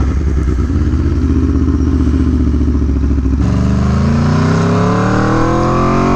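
Aprilia Tuono V4 Factory's V4 engine running at low, steady revs, then, a little over halfway through, the throttle opens and the revs climb steadily as the bike accelerates.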